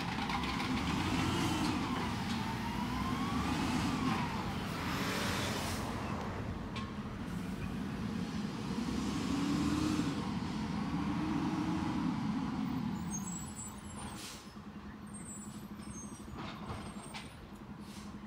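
Peterbilt 320 garbage truck's engine revving up and down in two rounds, with a short hiss of the air brakes about five seconds in; the engine sound falls away after about thirteen seconds.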